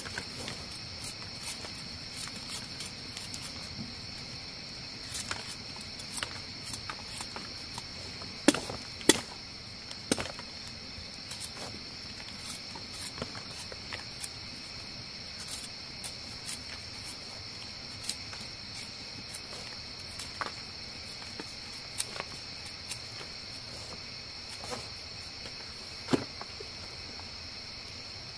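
A steady, high insect chorus drones throughout. Sharp clicks and knocks are scattered over it, louder twice around the middle and once near the end.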